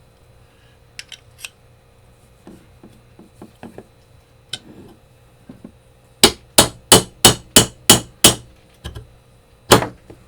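A hammer striking metal: seven quick, even blows about three a second, then one more blow a little later. Light clicking of small metal parts comes first.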